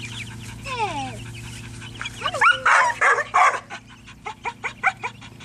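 Dog whining and yelping, excited by the chicks it wants to get at: sliding cries about a second in, a louder cluster of cries around the middle, then a quick run of short rising yips, about four or five a second, near the end.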